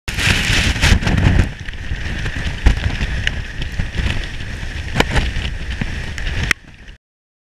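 Gale-force wind buffeting the camera's microphone: a loud, unsteady low rumble with hiss and a few sharp knocks, easing shortly before it cuts off.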